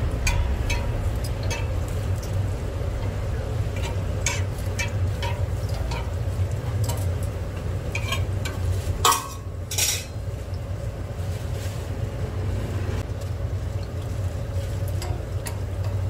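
Hotteok dough frying in oil on a flat griddle, sizzling, while a metal hotteok press and tongs clink against the griddle as the dough is pressed flat. A steady low hum runs underneath, and a louder clatter comes about nine seconds in.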